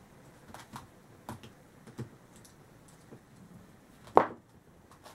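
Light clicks and taps of a plastic speedcube and a screwdriver being handled while the cube's tension screws are adjusted, then one sharp knock about four seconds in, the loudest sound.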